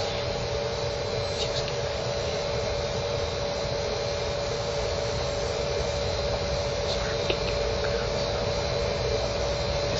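Steady hiss with a constant humming tone, and a couple of faint ticks about seven seconds in.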